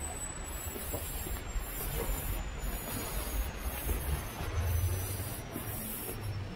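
Quiet back-street ambience: a steady hiss of distant city noise with a low rumble that swells for a couple of seconds in the second half. A faint high tone slowly falls in pitch throughout.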